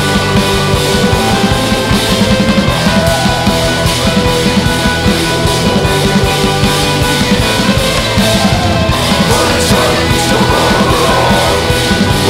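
Rock band playing loud and full-on: distorted electric guitars, bass, synths and a steady drum-kit beat.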